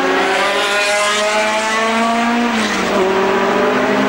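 A pack of historic racing cars accelerating hard, their engines rising in pitch together, with a drop about two and a half seconds in at a gear change before climbing again.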